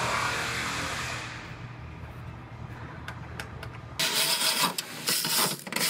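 A steady background hum fades out over the first second or two, and a few faint clicks follow. About four seconds in, a cordless driver starts running in short bursts, driving the taillight mounting nuts.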